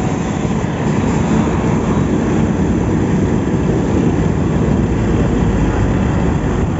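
Motorcycle riding along in traffic: steady engine and road noise with a low rumble of wind on the phone's built-in microphone.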